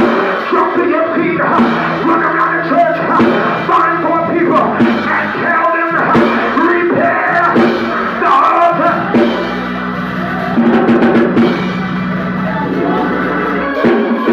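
Live church band music with drums and held low notes, with voices singing over it.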